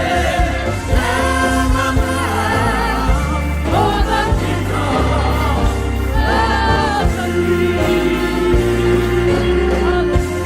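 Group of voices singing a gospel song with instrumental accompaniment and a bass line that steps between notes every second or so.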